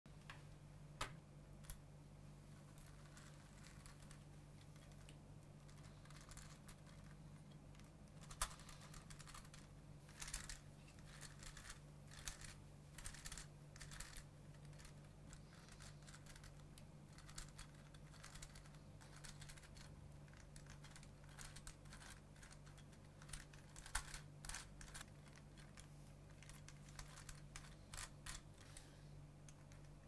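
Plastic gear cube puzzle being turned by hand: faint, irregular clicks and clatters of its interlocking plastic gears and pieces, with a few sharper, louder clicks now and then.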